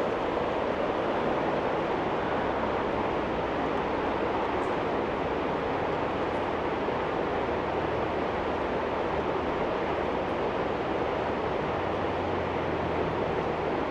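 Steady rush of a fast-flowing stream, even and unbroken, with a faint low hum beneath it.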